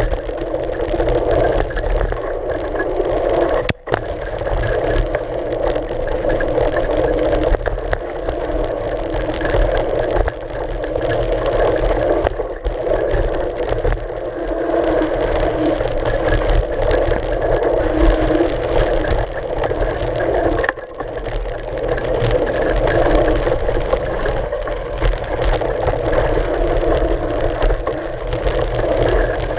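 Mountain bike riding over a dry dirt trail, heard from a camera on the front fork: a steady rumble and rush of the knobby front tyre rolling on dirt, mixed with wind on the camera housing. The sound briefly cuts out twice, about 4 seconds in and again about 21 seconds in.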